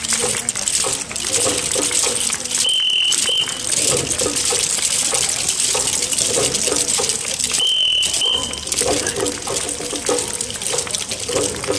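Murmur of many voices chattering over a dense, steady hiss. A short, high double beep sounds twice, about five seconds apart.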